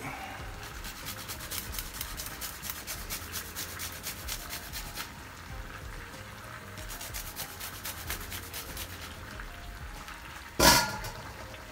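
Rapid rasping strokes of garlic being grated on a metal hand grater, in two runs with a short pause between, then one sharp knock near the end.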